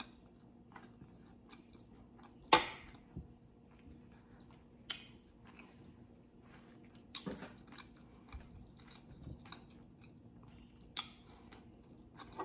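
Quiet close-miked chewing of a mouthful of white rice, beans and stewed beef, with scattered soft mouth clicks. A few sharp clicks stand out, the loudest about two and a half seconds in.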